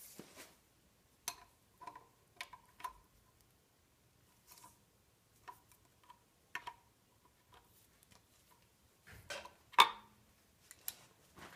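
Scattered metallic clicks and clinks of a ratchet wrench and socket as the oil pump bolts are run down snug, with a brief metallic ring after some strikes and a sharp clank about ten seconds in.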